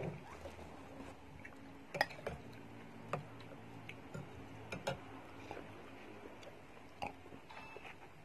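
Metal spoon and fork clinking and tapping against a ceramic soup bowl while eating bakso, meatball and noodle soup: sharp, separate clicks at irregular intervals, the loudest about two seconds in.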